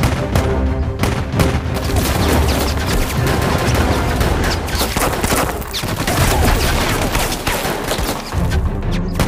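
Rapid, sustained gunfire, shots packed close together, over a dramatic orchestral score.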